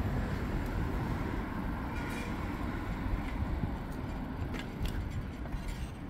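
Noise of riding a bicycle: a steady low rumble of wind buffeting the microphone and tyres rolling over paving, with a few faint ticks.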